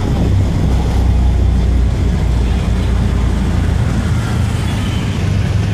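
Steady low rumble of a vehicle in motion along a town street, with no clear changes in pitch or level.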